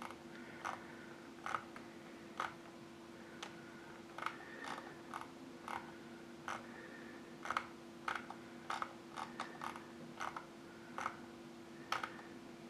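Computer mouse scroll wheel clicking in short, irregular runs as a page is scrolled, over a faint steady low hum.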